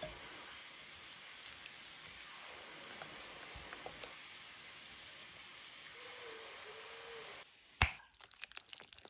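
Onions and garlic sizzling in a pan: a steady frying hiss with a few faint ticks. About seven and a half seconds in, the hiss cuts off. A sharp knock follows, then quieter clicks and knocks of a spatula stirring courgette slices in the pan.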